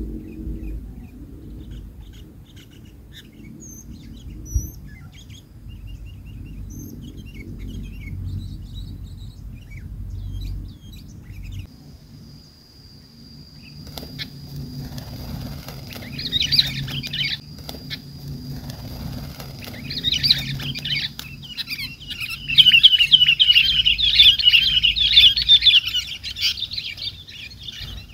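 Sooty-headed bulbuls calling in loud, rapid chattering bursts from about halfway in, strongest near the end, with a few wing flaps. A bulbul is struggling stuck on a limed twig of a bird-lime trap.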